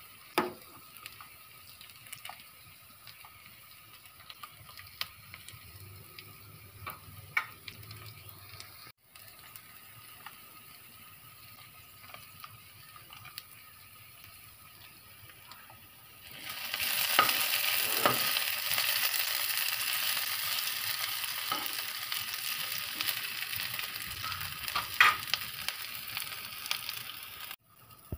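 A pot of spiced rice porridge broth on the stove. First there are a few light clinks of a ladle against the metal pot. From a little past halfway comes a loud, steady hissing and bubbling as the broth boils hard.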